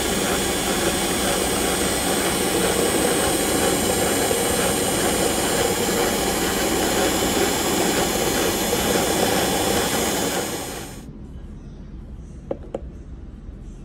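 Electric mixer with twin wire beaters running at speed in a bowl of whipped eggs, a steady motor whine with the beaters churning, cutting off suddenly about three-quarters of the way through. Two light knocks follow shortly after.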